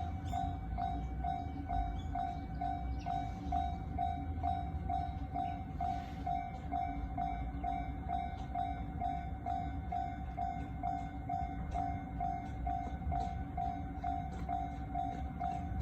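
Japanese level-crossing alarm bell ringing steadily at about two rings a second, over the low rumble of a 103 series electric train passing slowly through the crossing.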